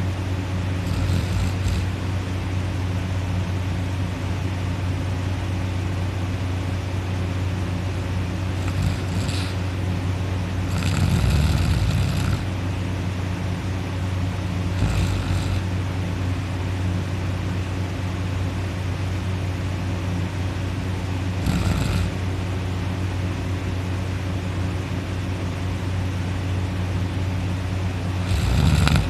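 A sleeping person snoring: a few short, rough snores at irregular intervals, the loudest about eleven seconds in and near the end, over a steady low hum.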